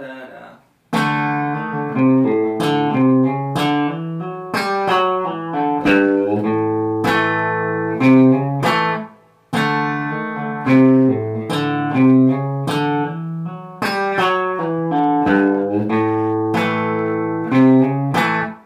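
Fender Telecaster electric guitar playing a country chicken pickin' lick in A, hybrid-picked with the pick plus middle and ring fingers against the open D string, giving a run of sharp plucked notes. The lick starts about a second in, stops briefly about halfway through, and is played again.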